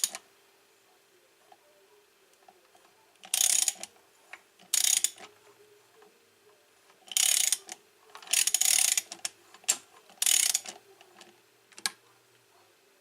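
A ratchet wrench clicking in about seven short bursts as the crankshaft of a 125cc single-cylinder four-stroke engine is turned over by hand, to check that the timing marks line up.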